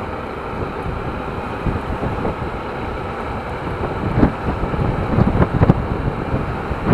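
Wind buffeting the microphone of a moving motorcycle, with the bike running underneath; the low gusts grow louder and choppier in the second half.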